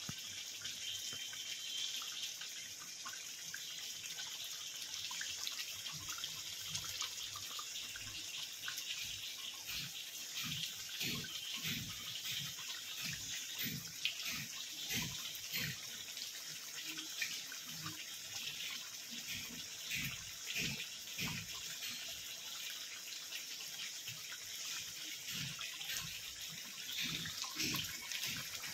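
Mutton kosha cooking in a pan: a steady sizzling hiss, with irregular low plops from the thick spiced gravy bubbling, most frequent in the middle.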